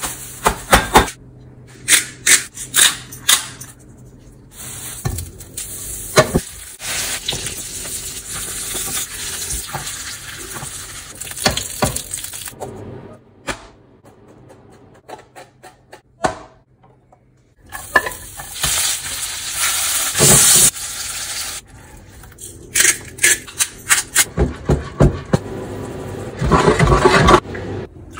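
A run of kitchen cooking sounds: quick taps and knocks on a plastic cutting board, stretches of steady hissing sizzle from a hot pan, and liquid poured into the pan near the end.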